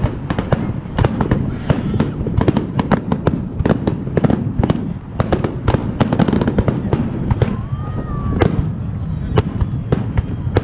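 Fireworks display in full barrage: aerial shells bursting in rapid, overlapping succession, a dense stream of sharp bangs and crackles over a continuous low rumble.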